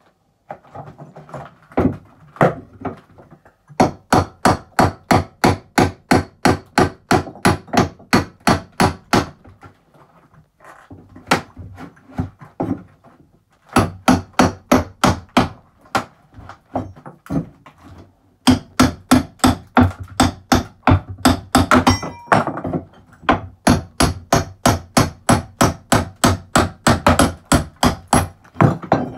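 Hammer striking a bolster chisel to chip ceramic wall tiles and their adhesive off plasterboard: rapid runs of sharp blows, about four a second, broken by short pauses.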